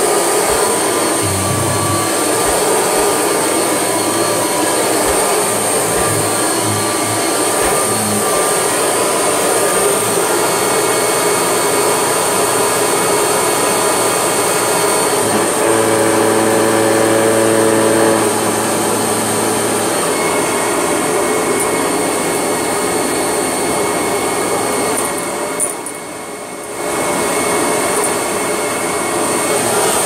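Kirby Legend II upright vacuum running steadily with a high whine as it is pushed over carpet. Its sound dips briefly a few seconds before the end.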